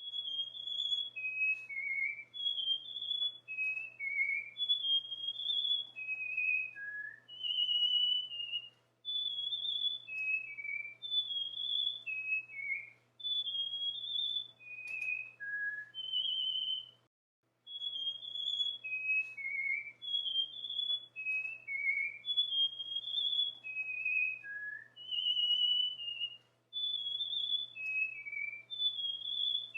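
Cockatiel whistling its song: a string of short, clear notes that step up and down in pitch. After a brief pause a little past halfway, the same phrase starts over. A faint steady low hum sits underneath.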